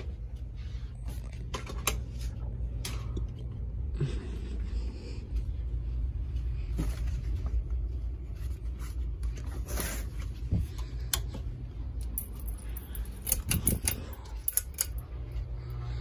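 Ceiling fan motor humming low and steady under scattered clicks and knocks. Near the end comes a quick run of sharp clicks, and then the hum grows stronger as a fan comes on.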